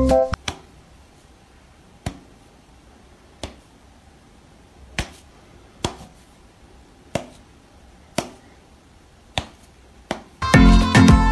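Sharp finger snaps, about nine of them roughly a second apart and unevenly spaced, each with a short room echo. Background music stops just after the start and comes back near the end.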